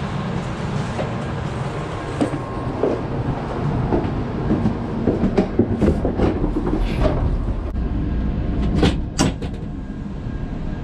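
Steady low rumble inside a Shinkansen bullet train car, with a run of knocks and clicks from a toilet compartment door being opened and handled, the sharpest a few strokes about nine seconds in.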